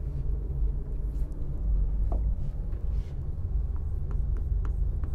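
Steady low room rumble, with a few light ticks near the end as writing on the board begins.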